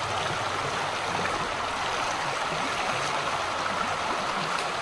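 Shallow creek running steadily over rocks, an even rushing of water.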